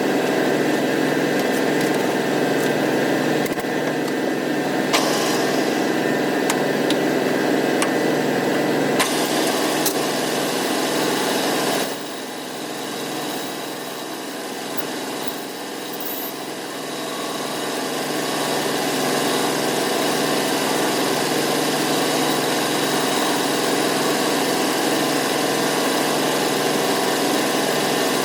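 Manual metal lathe running steadily, its motor and gear train making a constant mechanical hum with a hiss above it. It turns quieter for a few seconds about twelve seconds in, then returns to its earlier level; two light clicks come before that.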